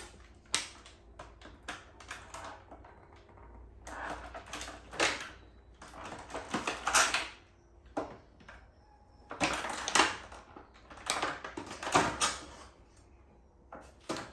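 Action-figure packaging being handled while the plastic ties holding the figure are cut: an irregular run of sharp clicks, snips and rustling plastic in short bursts.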